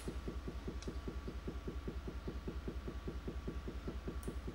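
Homemade subwoofer with a MAX 1600-watt driver, run from a car monoblock amp, playing a very low test tone taken for 5 Hz. It comes out as a square wave rather than a smooth sine, heard as a steady, even pulsing of about ten pulses a second.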